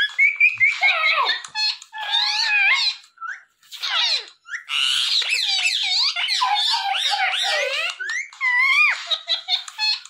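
Indian ringneck parakeet chattering: rapid, high, swooping calls and squawks with only brief pauses.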